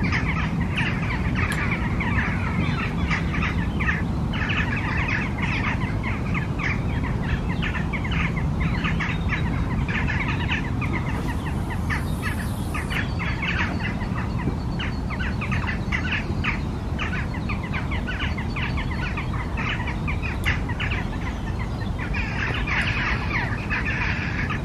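Songbirds chirping and singing continuously, many short rapid calls, over a steady low rumble.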